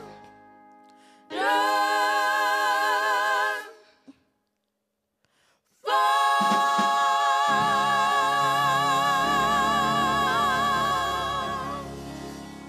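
A women's gospel praise team sings long held notes with vibrato. One note is sustained about a second in, then comes a short pause. A longer held note starts around six seconds, a low instrumental accompaniment comes in beneath it, and the sound fades near the end.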